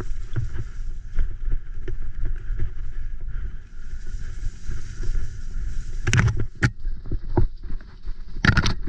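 Graziella folding bicycle rattling and rumbling down a wet, muddy trail, tyres running over mud and bumps with a steady rush of noise on the camera's microphone. Sharp knocks from the bike jolting over bumps stand out about six seconds in and again near the end.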